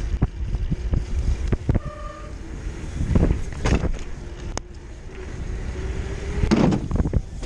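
Downhill mountain bike rattling over rough ground: a run of irregular knocks and clicks over a low rumble, with louder bursts about three seconds in and again near the end.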